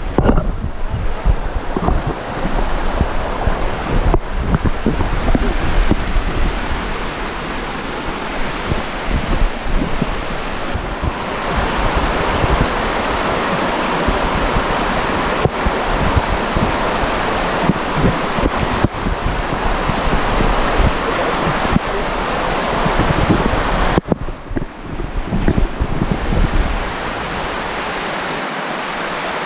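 Steady rushing of a waterfall's falling water, with some low wind buffeting on the microphone.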